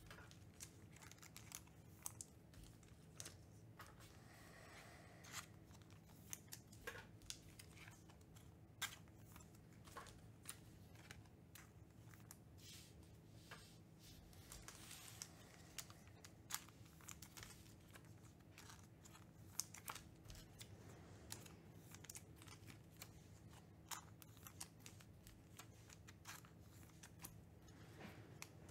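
Faint clicks, rustles and crinkles of trading cards being slipped into soft plastic sleeves, over a low steady hum.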